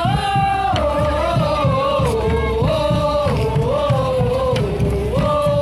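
Street-parade music: a single held melody, voice or wind instrument, moving up and down in long notes over a steady drum beat.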